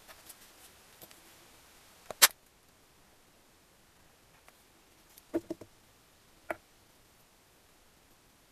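Sharp metal knocks and clicks of a gear shift selector shaft being handled and fitted against a Gilera Sport 150's aluminium crankcase: one loud knock about two seconds in, a quick run of three lighter clicks past the middle, and one more click a second later.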